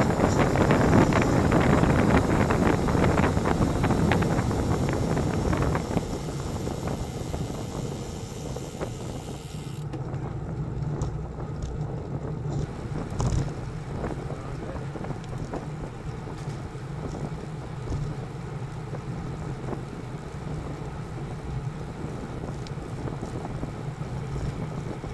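Wind rushing over a bike camera's microphone as a road bike rides at speed, loud for about six seconds, then dropping to a quieter, steady rush.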